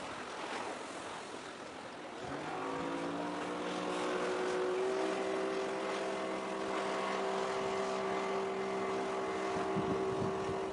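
A ship's horn sounds one long, steady blast of several tones at once, coming in about two seconds in with a short upward slide and holding to the end. Before it there is only wind on the microphone and light surf.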